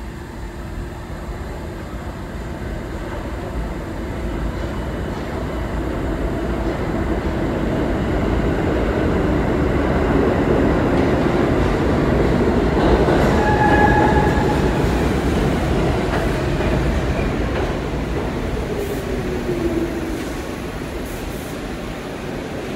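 Pullman-Standard R46 subway train arriving at an underground station: the rumble of its wheels on the rails builds as it approaches and is loudest about halfway, with a brief high tone then. The rumble eases as the train slows, with a falling whine near the end.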